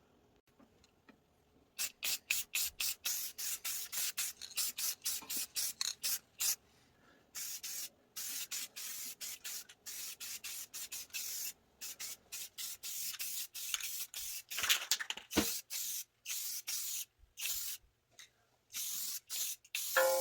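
Aerosol spray-paint can hissing in repeated short bursts, quick and clipped at first, then longer passes of about a second each.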